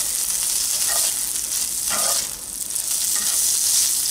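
Shredded pulled pork sizzling in hot olive oil in a cast-iron skillet while a spatula stirs and scrapes it around the pan. The sizzle dips briefly a little past halfway.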